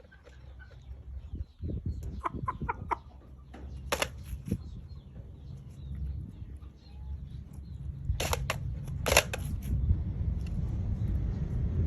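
Chicken feeding, with clusters of sharp taps and short soft sounds, over a low rumble that grows louder near the end.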